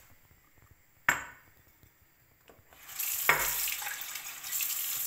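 Water being poured into a saucepan of simmering minced-meat tomato sauce, a steady hissing pour of about two seconds near the end. A single sharp knock about a second in.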